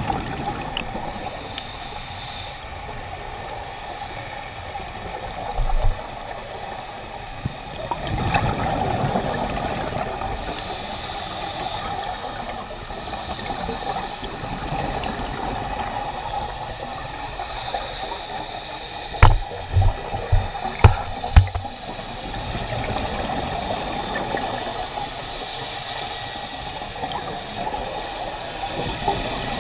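Underwater scuba-dive sound: the steady hiss and gurgle of regulator breathing and exhaled bubbles. About twenty seconds in comes a quick run of five sharp knocks.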